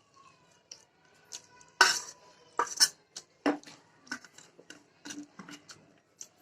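Close-up mukbang eating sounds: irregular wet chewing and mouth smacks mixed with sharp clinks on a plate, the loudest about two seconds in.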